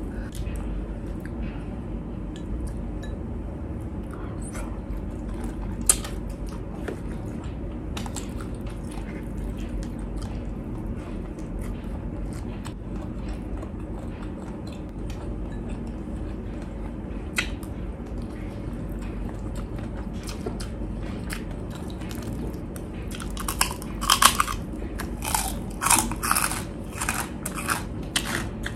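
Close-miked eating: chewing and small wet clicks of hand-eating and shrimp peeling over a steady low hum. From about three-quarters of the way in, a run of loud crunching bites on crisp food.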